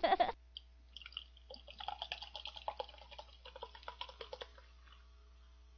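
Carbonated energy drink poured from a can into a ceramic mug: a run of quick splashing and glugging that starts about a second and a half in and lasts about three seconds.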